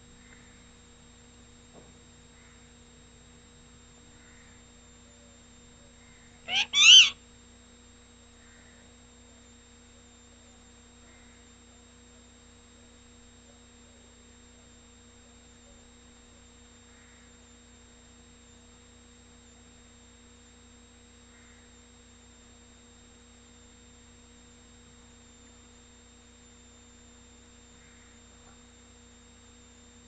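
Caged pet parakeet squawking once, about six and a half seconds in: a short call and then at once a louder, longer one. Otherwise only a steady low hum and a thin high whine.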